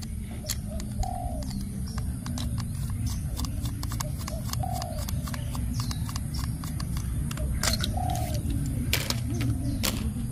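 Small clicks and taps of a screwdriver and plastic as a toy locomotive's underside is unscrewed, the sharpest clicks near the end. A bird coos briefly about every three seconds over a steady low rumble.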